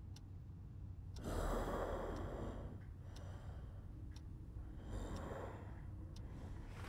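A person breathing heavily: two long breaths, the first about a second in and lasting over a second, the second a little shorter near the five-second mark.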